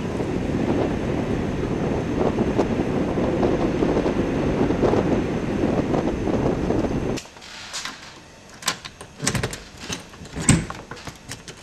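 Blizzard wind gusting hard across the microphone. About seven seconds in, the wind noise cuts off abruptly, leaving a few scattered knocks and clicks.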